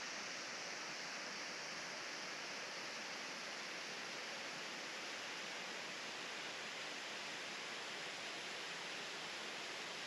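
Faint, steady rush of a waterfall: an even hiss of falling water that does not change.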